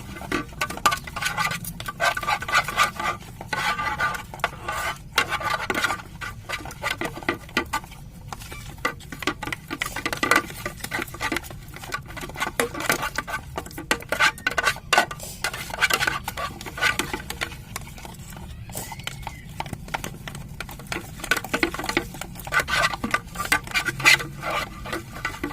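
Spoon stirring a sticky glue slime mixture in a container: a continuous run of quick clicks and scrapes as the spoon knocks and drags against the container.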